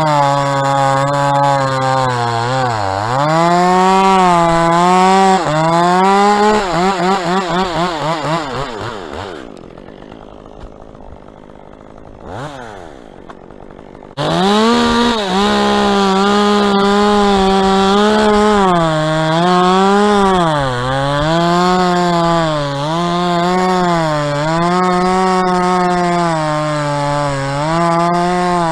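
Two-stroke chainsaw cutting dead palm trunks, its engine pitch dipping and recovering as the chain bogs under load. About a third of the way in the engine winds down and stays low for several seconds, then snaps back up to full throttle and carries on cutting with the same rising and falling pitch.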